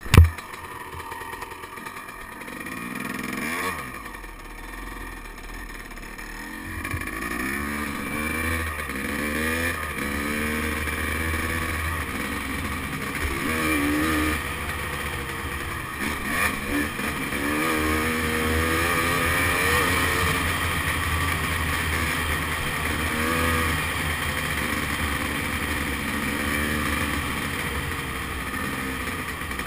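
Dirt bike engine running under way, its pitch rising and falling again and again as the throttle is rolled on and off. A brief loud knock comes right at the start.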